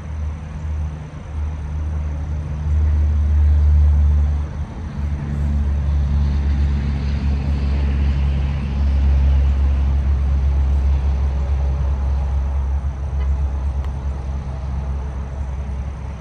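Steady low rumble of road traffic, swelling as a vehicle goes by about halfway through.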